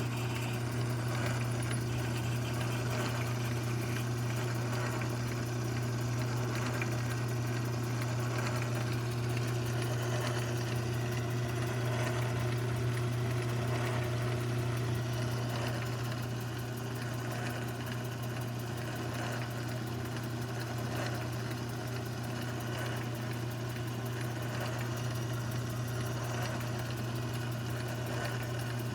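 Older mini lathe running at a steady speed with a constant motor hum, drilling a tap hole for a 1/4-inch thread. The sound eases slightly about halfway through.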